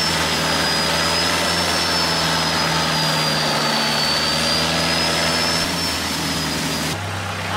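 A vehicle engine running steadily, with a high whine that slowly wavers in pitch; the sound changes abruptly about seven seconds in.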